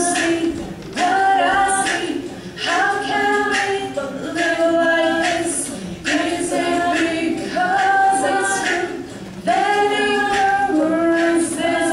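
All-female a cappella group singing in harmony without instruments, in short phrases of held notes with brief breaks between them.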